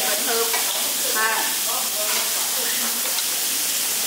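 Marinated beef rib slices and pork belly sizzling steadily on a hot ridged tabletop grill plate.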